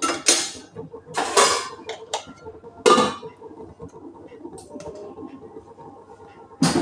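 Metal cookware clattering as a metal lid is handled and set on a cooking pot: four short clanks, three within the first three seconds and one more near the end.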